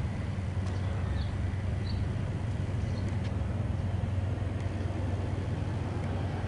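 Steady low hum and rumble of outdoor background noise, with a few faint short high chirps.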